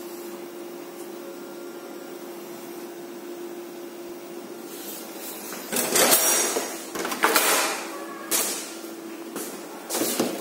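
The plastic film tray of an AGFA Drystar 5302 film printer being pulled out, from about six seconds in: a few loud scraping slides and clunks, over a steady hum.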